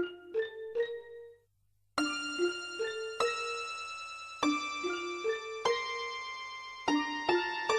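Background music: a few short ringing notes, a brief pause, then a slow melody of held keyboard notes.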